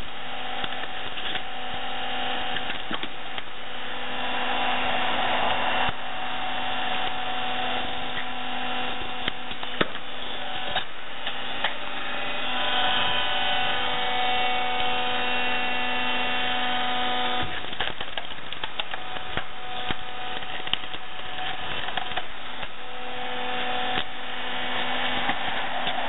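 An electric hydraulic log splitter's motor and pump running with a steady hum, its note changing about a quarter of the way in and again about two-thirds through as the ram works. A few sharp cracks come from the log splitting under the wedge.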